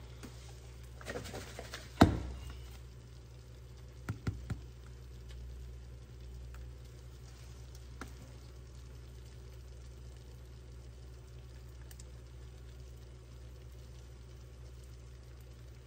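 Kitchen handling sounds: a few knocks about one to two seconds in, the sharpest at two seconds, and a couple of clicks around four seconds, as a bottle is picked up and brought to the stove. After that there is a steady low hum with faint frying from an egg in a nonstick pan.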